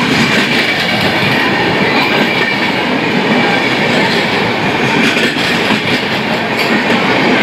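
Express train's red-and-grey LHB passenger coaches running through the platform at speed without stopping: a steady, loud rush and rumble of wheels on rail, with a faint high ring and a few clacks as the wheels pass over rail joints.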